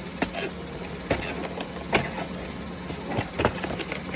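Cardboard and plastic toy packaging being handled, with scattered crackles and taps as a doll is worked loose from its box. A steady low hum runs underneath.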